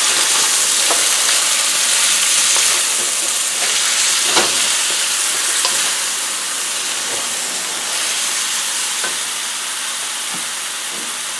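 Bean sprouts and snap peas sizzling in a hot wok, stirred with a wooden spatula that scrapes and knocks against the pan now and then. The sizzle eases gradually.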